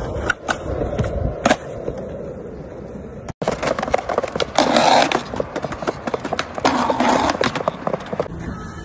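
Skateboard wheels rolling on concrete, with sharp clacks of the board's tail and deck striking the ground as tricks are popped and landed. The sound drops out for an instant about a third of the way through, then the rolling and clacking pick up again, busier.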